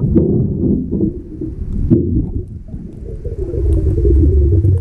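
Muffled underwater rumble and bubbling of water moving around a camera held underwater, with a couple of sharp knocks; the low rumble grows louder near the end.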